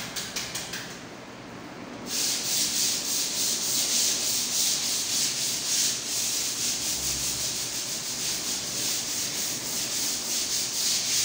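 Sandpaper rubbed by hand on a wall in quick back-and-forth strokes, a dry scratchy hiss. It is faint at first and grows louder and steady from about two seconds in.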